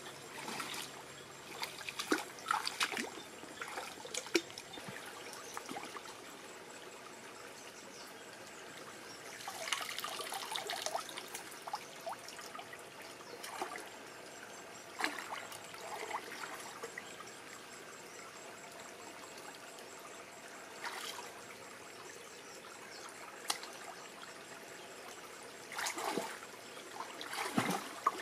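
Shallow stream water trickling steadily, with scattered splashes and sloshing as hands grope through the muddy water for fish, bunched around the start, the middle and near the end.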